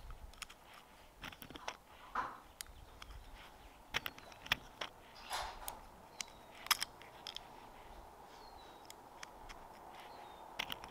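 Quiet outdoor ambience: scattered soft clicks and knocks, light wind, and a bird giving short, high, falling chirps every second or two in the second half.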